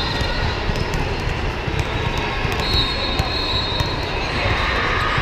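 Steady, echoing din of a large sports hall during volleyball play: a low rumble and crowd noise, scattered sharp knocks, and a high steady tone held for about a second twice, once at the very start and again near the middle.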